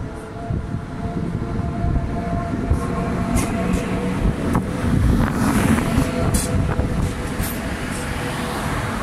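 Passenger coaches rolling slowly past close by: a steady rumble of wheels and bogies on the rails, with several sharp clicks and squeaks, loudest about midway.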